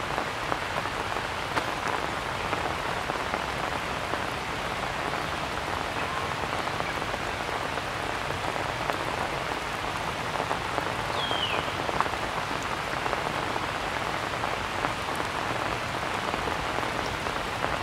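Steady rain falling on rock and grass, many small drops ticking through an even hiss. A single short, high, falling chirp sounds about eleven seconds in.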